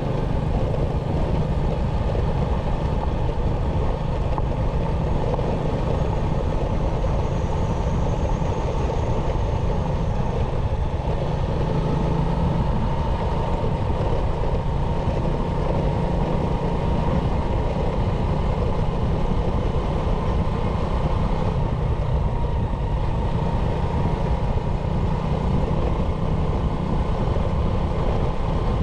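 Motorcycle riding at a steady pace: the engine runs evenly under a heavy rush of wind on the bike-mounted camera's microphone, with a faint steady whine.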